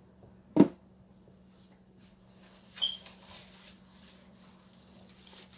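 One sharp knock about half a second in, from boxes being handled on a hard surface, over a faint steady hum. A brief high chirp sounds a little before the middle.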